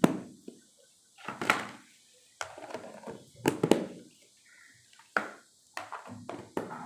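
Food storage boxes being handled and set down in a fridge freezer: a series of irregular knocks and clunks.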